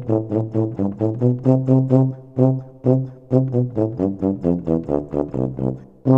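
Background music: an upbeat tune of short, evenly spaced notes, about four or five a second, with a run of lower notes stepping down around the middle.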